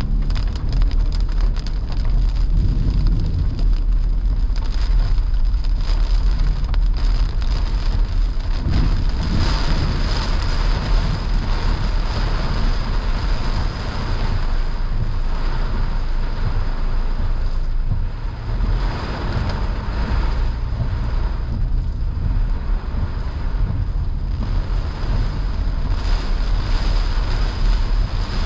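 Heavy rain pelting a car's windshield and roof, heard from inside the cabin over the steady rumble of the car and its tyres on the wet road. The rain comes in waves, heaviest about a third of the way in and again about two-thirds through.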